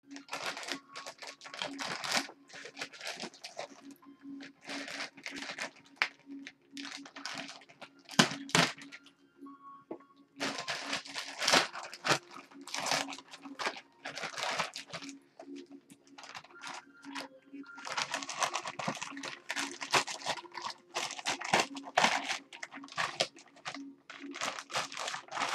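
Grey plastic mailer bag crinkling and tearing as it is handled and ripped open by hand, in irregular rustling bursts, over a steady low hum.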